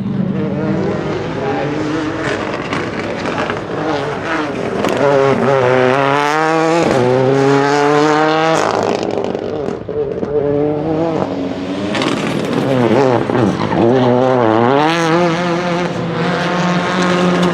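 Ford Focus RS WRC rally car's turbocharged two-litre four-cylinder engine revving hard through the gears, its pitch climbing steeply and dropping back at each shift, with sharp crackles between.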